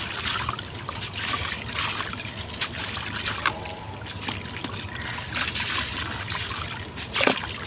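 Sand-cement blocks crumbling and disintegrating in water: a steady gritty crackle and fizz with many small sharp crumbles and trickles, and a louder crack-and-splash about seven seconds in.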